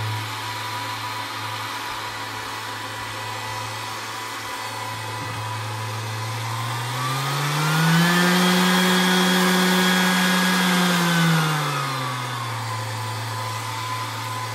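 Milwaukee M18 FUEL brushless random orbital sander running with no load, its pad spinning and orbiting freely with a steady hum. About seven seconds in the speed rises to a higher, louder pitch, holds a few seconds, then drops back to the lower speed near the end.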